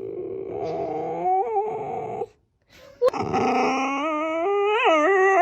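A dog answering with drawn-out, wavering howl-like whines, the "talking" sort that sounds like it is saying something back. It comes in two stretches with a short break a little over two seconds in, and the pitch bends up and down through the second stretch.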